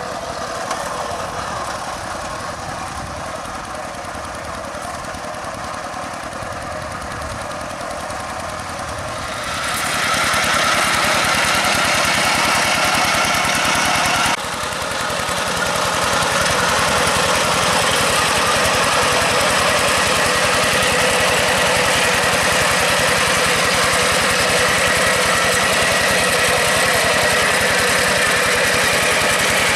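Single-cylinder diesel engine of a two-wheel hand tractor running steadily with a knocking beat while tilling a rice paddy. It gets louder about a third of the way in and drops out briefly at a cut near halfway, then runs on steadily.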